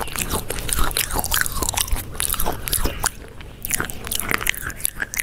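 Close-miked chewing of crunchy food: a dense run of crisp crunches and wet mouth clicks, easing off briefly about three seconds in.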